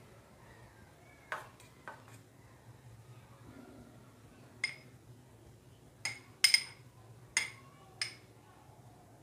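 Metal spoon clinking against a small glass bowl while spreading cream, about eight sharp ringing taps at irregular intervals, most of them bunched in the second half.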